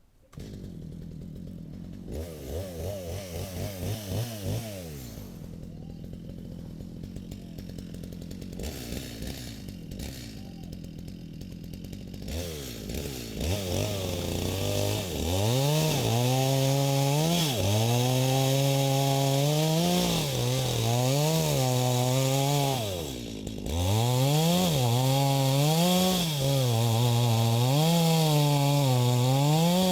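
Stihl MS250 two-stroke chainsaw running at low speed with some blips of throttle, then opened up to full throttle about halfway through and cutting, its pitch repeatedly dipping and recovering as the chain loads in the wood of a sil-koroi tree, with a brief easing-off of the throttle partway through.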